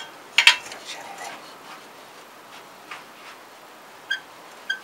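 Chrome motorcycle exhaust pipe and silencer knocking and clinking as they are worked loose by hand. A sharp knock about half a second in, then a few lighter taps and two short high pings near the end.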